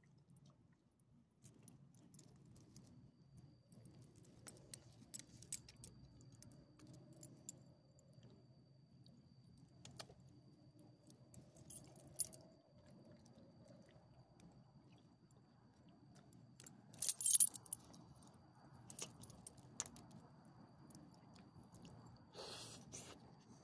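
Metal ID tags and leash clip jingling on a small dog's collar in scattered short bursts as the dog moves and sniffs about, with the loudest jingle about two-thirds of the way through and another near the end.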